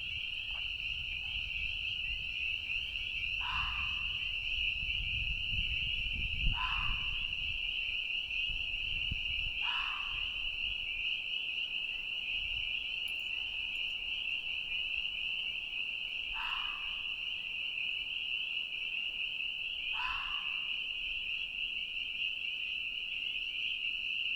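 A spring peeper chorus rings steadily and loudly. Over it, an unidentified animal gives a short yelling bark five times, a few seconds apart; the recordist guesses it could be a fox or a coyote.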